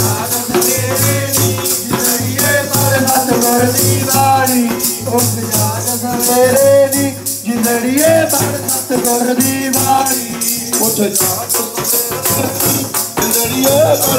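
Punjabi devotional hymn sung with melodic, gliding voices, over jingling shaker-like percussion that keeps an even beat of a few strokes a second.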